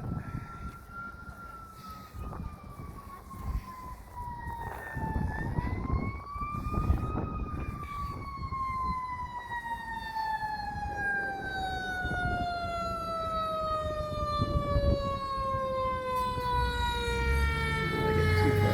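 Fire engine siren wailing: its pitch dips and climbs back once about five to seven seconds in, then slowly and steadily winds down.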